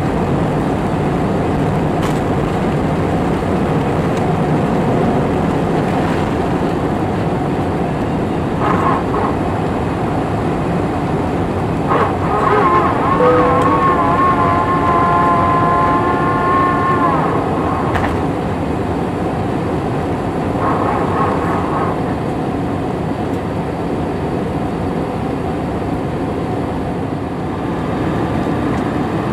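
Airbus A320's jet engines running at takeoff thrust, a steady rumble heard from the cabin over the wing through the takeoff roll and climb-out. About twelve seconds in, a whining tone comes in over it, holds for about five seconds and cuts off.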